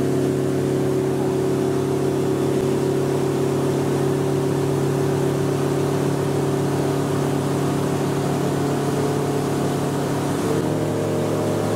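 A powerboat's engine runs steadily at cruising speed, with a slight shift in pitch about ten seconds in.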